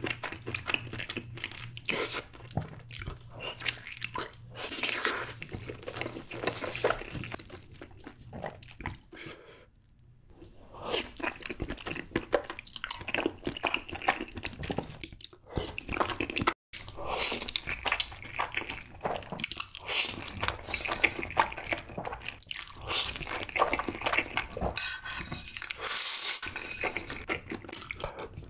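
A person eating close to the microphone: wet chewing, lip smacking and slurping of noodles, with soft bites. The eating goes quiet briefly about ten seconds in and cuts off abruptly for an instant a few seconds later.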